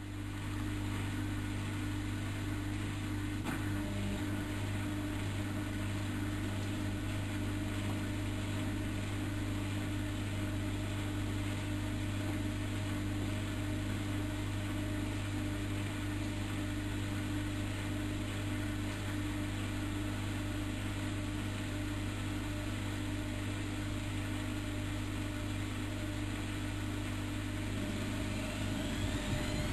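Bauknecht WAK7760 washing machine's drum motor starting and running with a steady hum. Near the end a rising whine comes in as the motor picks up speed.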